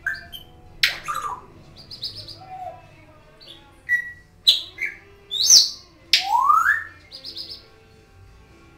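African grey parrot whistling, chirping and clicking: a string of short whistles and sharp clicks, with a loud high whistle about five and a half seconds in followed by a long rising whistle.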